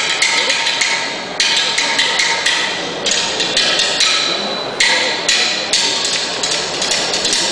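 Japanese taiko drums struck with wooden sticks (bachi) in a driving rhythm: sharp strokes about two a second, with quicker strokes between.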